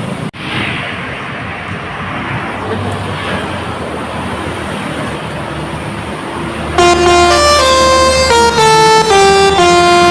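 Steady bus engine and traffic noise, then about seven seconds in a Basuri 'telolet' multi-tone bus horn starts up loudly, stepping through a quick tune of short horn notes.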